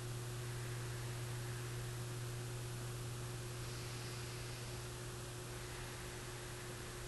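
Steady hiss with a constant low hum underneath and no distinct sounds: the background noise of the room and recording.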